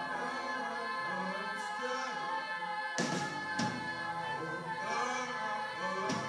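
Live band music: two women singing held notes in harmony over sustained instrumental chords, with two sharp percussive hits about halfway through.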